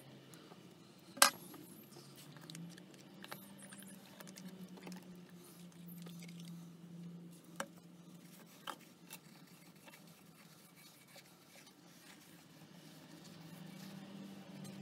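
Small metal tool and parts being handled against a cast-iron lathe casting: one sharp metallic click about a second in, then a few lighter clicks and faint scrapes, over a low steady hum.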